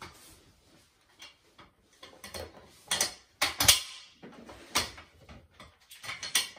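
Metal parts of a bolted frame clinking and knocking as they are handled and fitted together by hand: a string of sharp clicks and knocks, the loudest about three to four seconds in.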